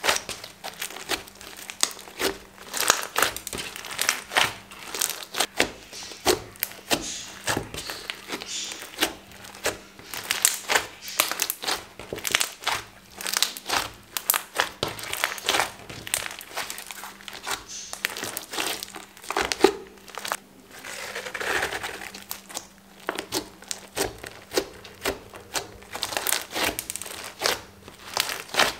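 Fluffy white slime being kneaded, squeezed and pressed by hand, giving a dense, irregular run of quick sticky crackles and clicks.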